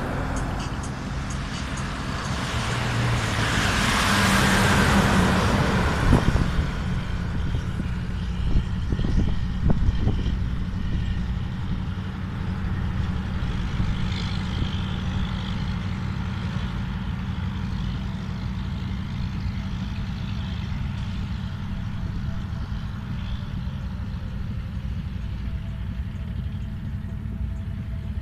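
Road traffic: a vehicle passes about four seconds in, its tyre and engine noise swelling and fading, followed by a steady low rumble of traffic and a few knocks a little later.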